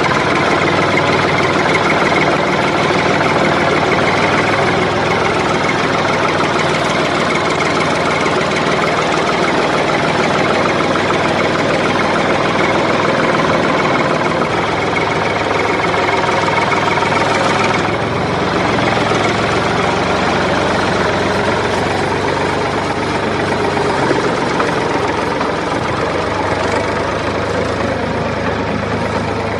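A diesel tractor engine running steadily at idle, its tone changing slightly about two-thirds of the way through.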